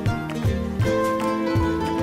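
Background music with plucked strings playing a steady, regular rhythm of notes.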